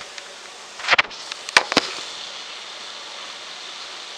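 A few sharp knocks and clicks from handling, bunched about a second in, over a steady soft hiss from a pan of chopped vegetables steaming on the stove.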